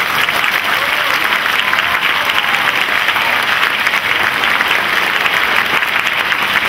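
An audience applauding: steady, dense clapping that starts just as the talk ends.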